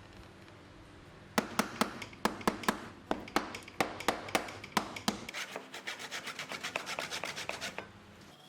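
Hand-tool work on wood: a run of sharp, uneven strokes, then a quicker run of lighter ones that stops near the end.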